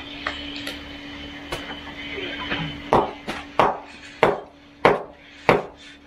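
A tool knocking on wood at a concrete pour: five sharp, evenly spaced knocks in the second half, about two-thirds of a second apart, over a steady low hum. The knocks fit a hammer tapping the wooden forms.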